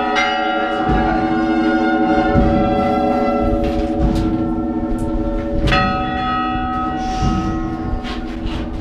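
Church bells in a belfry, rung by hand by bell ringers: strokes on several bells at uneven intervals, each leaving a long ringing tone, so that the tones overlap into a continuous peal.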